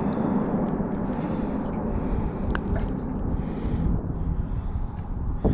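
Open-water ambience on a small fishing boat: a steady low rumble of wind and water, with a faint steady whine and a couple of light clicks about two and a half seconds in.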